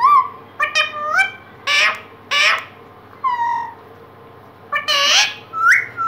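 Indian ringneck parakeet chattering at its reflection in a mirror: a run of short, high calls that slide in pitch, a pause of about a second, then a louder cluster of squawks near the end.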